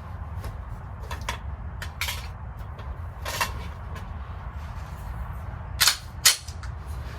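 9 mm Glock 19X pistol firing: a few fainter shots, then two loud shots about half a second apart near the end, over a steady low rumble.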